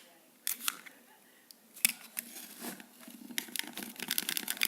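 Plastic Stanley utility knife being handled: a few sharp separate clicks, then a quick run of clicking and scraping near the end.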